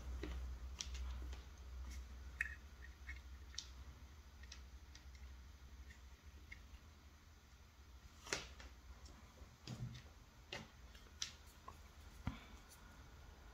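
Scattered faint clicks and light taps as thin wires and a helping-hand clip are handled and positioned on a small LED circuit board, the sharpest about two-thirds of the way through, over a low steady hum.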